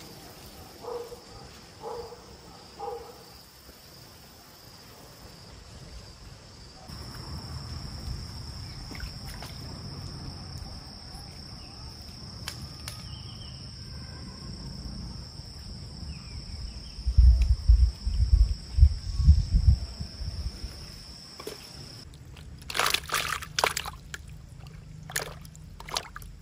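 Water sloshing and trickling, louder in a burst about two-thirds of the way in, with a few sharp knocks near the end. A few short animal calls come in the first seconds.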